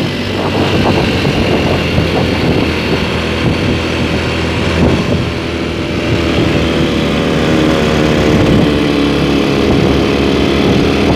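Honda Supra Fit's 100 cc single-cylinder four-stroke engine pulling steadily while riding, its pitch rising gently in the second half. The repaired clutch is no longer slipping.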